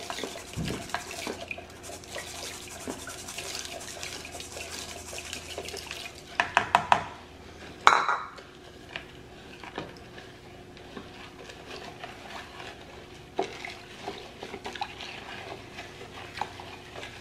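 Spatula stirring potassium hydroxide flakes into water in a plastic bowl, dissolving the lye for a soap lye solution: light scraping and clinking against the bowl. A quick run of sharp knocks comes about six and a half seconds in, and a louder single knock near eight seconds.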